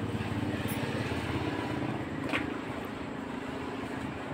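Steady low engine hum with a fine rapid pulse, and one short sharp click a little over two seconds in.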